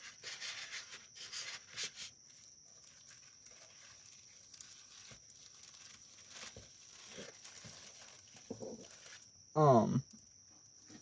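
Packaging being rustled and torn for about the first two seconds, then quieter occasional handling noises, over a steady high chirring of crickets. A short burst of voice comes near the end.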